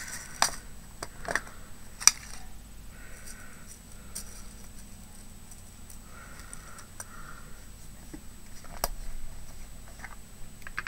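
Scattered light clicks and taps of small craft supplies being handled on a desk, with one sharper click about two seconds in and another near the end.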